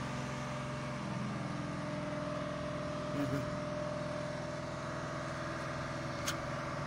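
Steady engine hum with a constant pitch, and a sharp click near the end.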